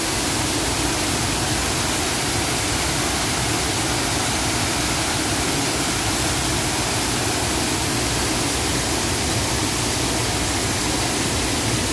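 Water spilling in a wide sheet over the edges of an ornamental water feature and falling into a pool below: a steady, even rush of splashing water.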